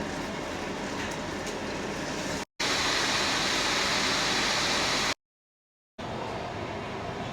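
Food sizzling in a wok, a steady hiss in short edited clips: it cuts off abruptly twice, and the middle clip is louder and brighter.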